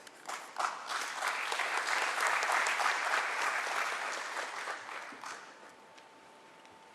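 Audience applauding, building up quickly, holding for a few seconds and dying away about five seconds in.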